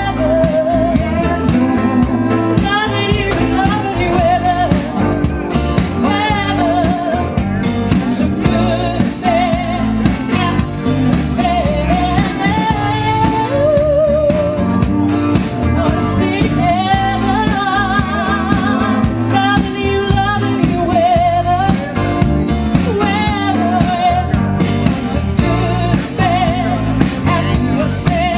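Live band playing a song: a singer with a wavering vibrato over keyboards, bass, guitar and drums.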